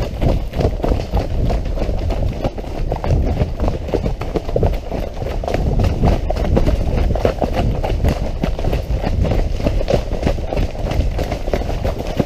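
Horse moving at speed along a muddy woodland track, heard from the saddle: a rapid, continuous run of hoofbeats in wet mud, over a steady low rumble.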